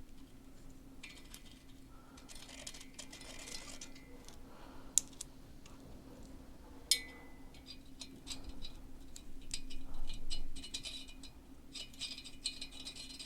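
Small steel parts clinking and rattling as washers and nuts are fitted onto the cylinder head studs of a motorcycle engine. Two sharp metallic clinks come about five and seven seconds in, and a busier rattle follows around ten seconds in, over a faint steady hum.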